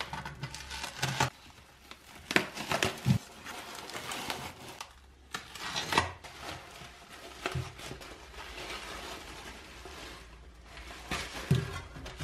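Paper towels rustling and crinkling as masking tape is peeled and cut from the wrapping around a rusty steel shovel blade, with several sharp knocks and low thumps as the blade shifts on the wooden bench.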